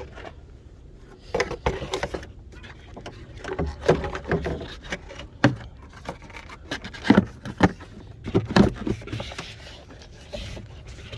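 Irregular clicks, knocks and scrapes of hoses and plastic air-intake parts being handled and fitted back into place in an engine bay, with several sharper knocks in the second half.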